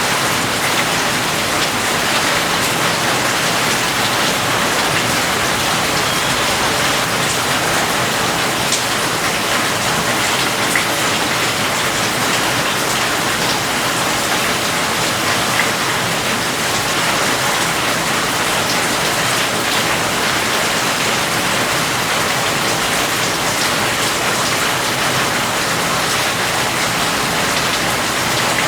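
Steady heavy rain, an even hiss with scattered drops ticking on a surface.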